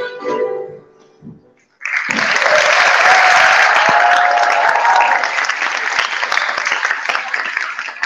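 Violins and piano play the last notes of a piece, with one short closing note after them. After a brief silence, audience applause breaks out about two seconds in, with a voice or two cheering within it.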